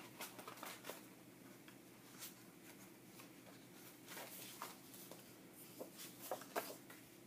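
Faint rustling and flicking of paper sheets as a pad of patterned scrapbook paper is leafed through, with a few sharper flicks near the end.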